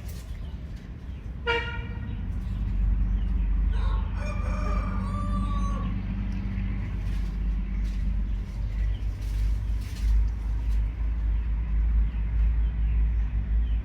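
A rooster crowing: a short call about a second and a half in, then a longer crow of about two seconds from about four seconds in, over a steady low rumble.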